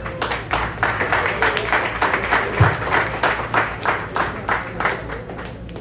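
A small group applauding with hand claps, a fast uneven patter that fades toward the end. A short low thump sounds about halfway through.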